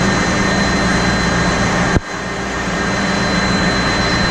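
Steady engine-room noise of a ship under way, dominated by the running Wärtsilä RT-flex82T seven-cylinder low-speed two-stroke main diesel, with a few steady machine tones through it. A sharp click about halfway through, after which the noise drops briefly and builds back up.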